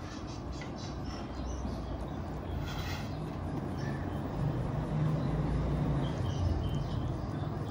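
A low steady rumble that swells a little past the middle, with a brief faint squawk from the ringneck parrot about three seconds in.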